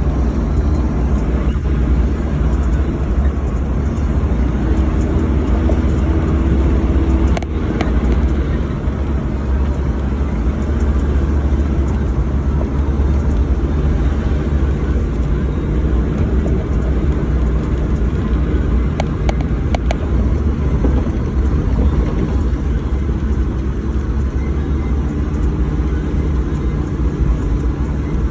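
Vehicle driving uphill on a mountain road: a loud, steady low engine and road rumble, with a few brief knocks about a quarter of the way in and again about two-thirds through.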